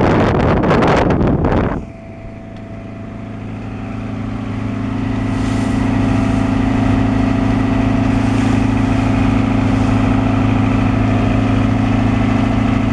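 Wind buffeting the microphone for the first couple of seconds, then a sudden change to the steady drone of a Seamaster motor cruiser's engine heard from the helm. The engine drone grows louder over about four seconds and then holds steady.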